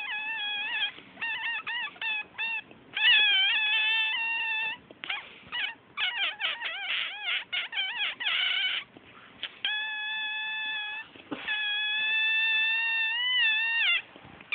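A string of weird high-pitched squeaky sounds: quick chirps and warbling glides, then two long held tones, the second bending in pitch near the end.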